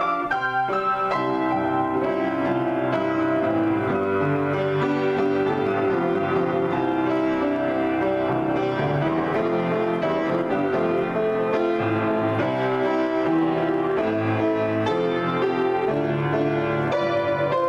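Solo piano improvisation: full chords held under a moving line of notes, played at an even loudness with no pauses.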